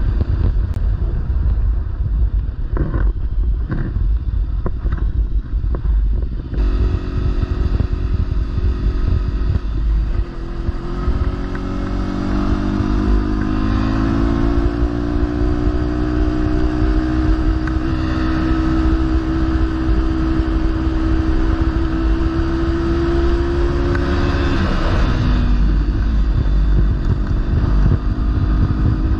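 Kawasaki Versys-X 300 parallel-twin engine running while riding, with heavy wind rumble on the microphone. The engine note comes in strongly several seconds in, climbs, holds steady for a long stretch, then drops back near the end and picks up again.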